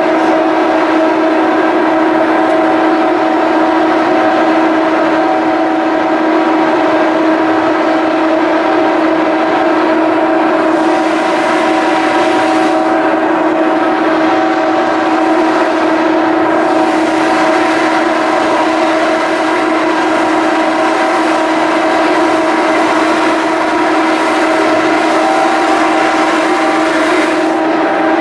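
Large car ferry's engines and onboard machinery running with a loud, steady droning hum made of several fixed tones, unchanging throughout.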